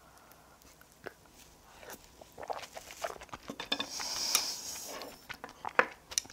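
Eating sounds from a curry mukbang: quiet at first, then scattered clicks of a spoon against the dish and crunchy biting and chewing, the crunchiest part in the middle.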